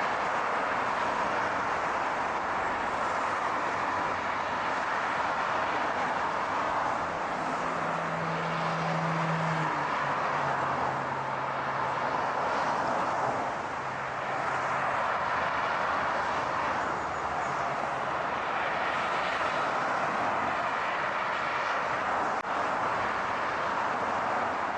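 Steady rushing car and road noise. A low engine hum comes in about seven seconds in, drops in pitch near ten seconds and fades away by about eighteen.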